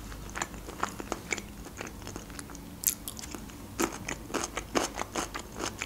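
Close-miked mouth sounds of a person chewing a mouthful of mashed potato and hearts in tomato sauce with her lips closed: irregular soft wet clicks and smacks, a few louder ones about three to five seconds in.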